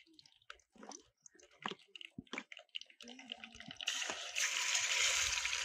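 A spoon clicks and scrapes against a plastic tub as marinated fish pieces are scooped out. About four seconds in, a sudden steady sizzle starts as the fish goes into a pan of hot coconut oil over a wood fire.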